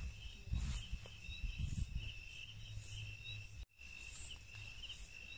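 Crickets trilling steadily, with a high chirp repeating about twice a second. Low thuds and rustling sound in the first two seconds, and all sound drops out for an instant a little before four seconds in.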